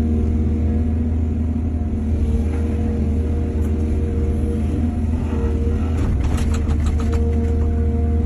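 Excavator engine running steadily at a low, even hum, with a short burst of knocks and rattles about six seconds in.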